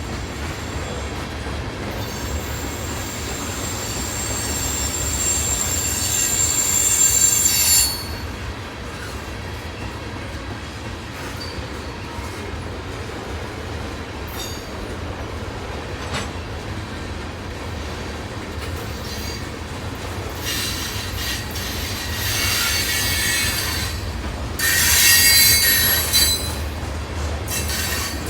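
Freight train rolling past with a steady low rumble, its wheels squealing on the rails in several high-pitched spells. The squeal builds over the first few seconds and cuts off suddenly about eight seconds in, then returns twice near the end, loudest about twenty-five seconds in.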